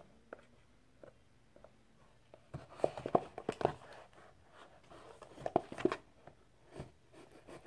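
A small blade scratching and picking at the seams of a cardboard box, short scrapes and taps that start about two seconds in and come in irregular clusters as it is worked to force the box open.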